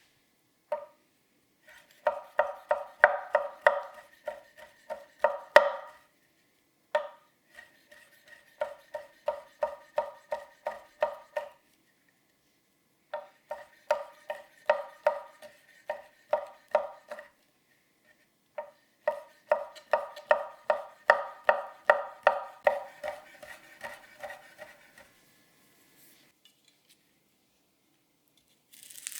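A 280 mm carbon-steel gyuto chopping on a cutting board in four quick runs of strokes, about three a second, each stroke a sharp knock with a short ring, with brief pauses between runs.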